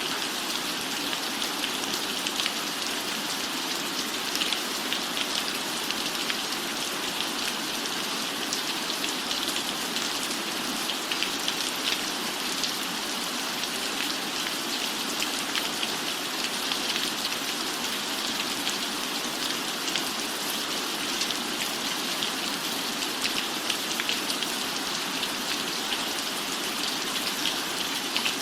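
Steady rain falling, an even hiss with a dense patter of individual drops.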